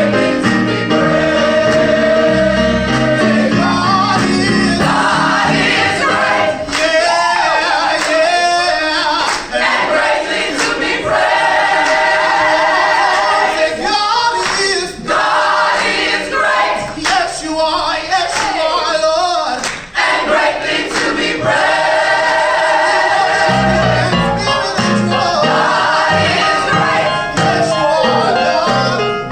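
Gospel singing by a group of voices together. The low bass part drops out about five seconds in and comes back for the last few seconds.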